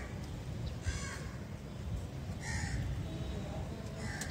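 A crow cawing three times, about a second and a half apart, over a steady low rumble.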